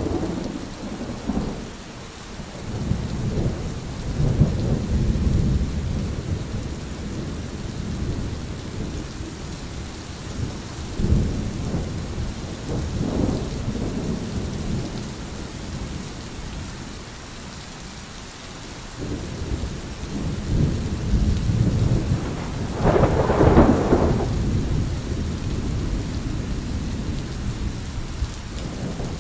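Thunder rolling several times over steady rain. The loudest and sharpest peal comes about three-quarters of the way through.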